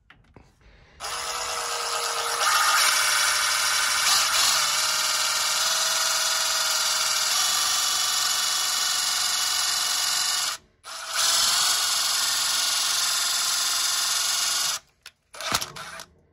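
Power drill driving a self-tapping screw into the top of a Holden 308 V8 piston that is stuck above a snapped connecting rod, to pull the piston out. The drill runs steadily for about nine seconds, stops briefly, then runs again for about four seconds and cuts off.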